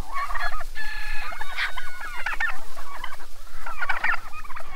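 A flock of chickens clucking and calling over one another in short, overlapping calls.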